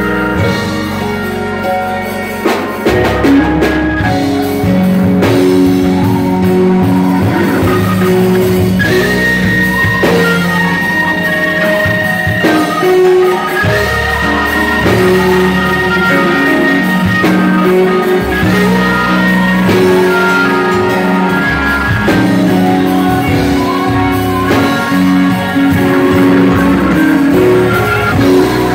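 Gospel organ playing sustained chords over a moving bass line, with a high note held for several seconds midway, accompanied by singers.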